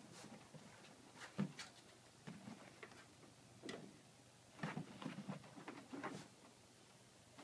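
Faint, irregular taps and scuffles of Scottish Fold cats' paws and bodies against a fabric cat cave and the surface under it as they play, coming in small clusters of soft clicks.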